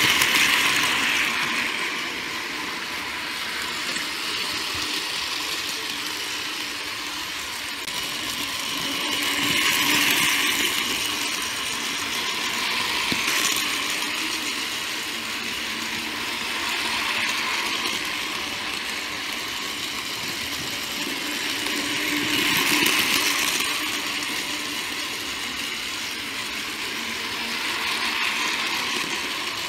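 Battery-powered DX Train toy trains running on plastic track, their small motors whirring steadily. The sound swells each time a train passes close, several times over.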